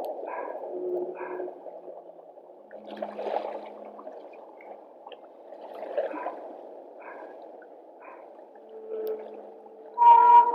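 Whale sounds recorded underwater: a series of short pulsed calls and brief tonal moans over a steady watery hiss. A louder, higher-pitched call comes in right at the end.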